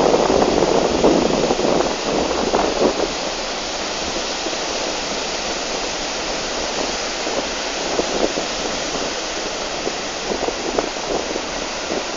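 Steady rush of sea surf mixed with wind buffeting the microphone, a little louder and gustier in the first few seconds.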